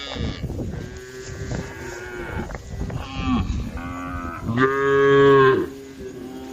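A herd of cows mooing, several overlapping calls one after another, the loudest and longest about two-thirds of the way through.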